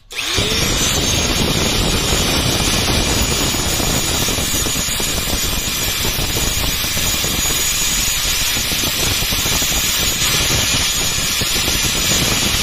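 Electric angle grinder switched on, whining up to speed within the first second, then running at a steady pitch while the steel jaw tips of wire-cutting pliers are ground against its abrasive disc to square off a broken tip.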